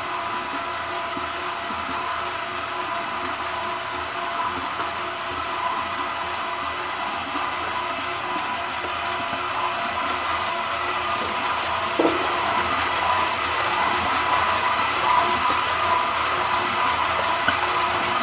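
Electric drive of a stainless-steel cosmetic mixing tank running steadily, a motor whine over a churning hiss as the agitator shaft spins in a thick white foamy mix. A single short knock about twelve seconds in.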